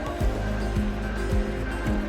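Background music with a steady beat, a low drum hitting a little under twice a second under held tones.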